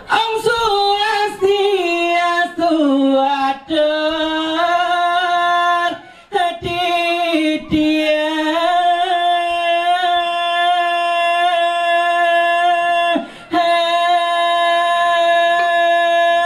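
A single voice singing unaccompanied into a microphone in Balinese vocal style, holding long notes with wavering ornaments and stopping briefly for breath a few times.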